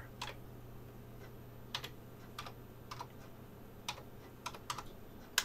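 Faint, irregular clicking of a computer keyboard and mouse, about a dozen separate taps, the sharpest one near the end.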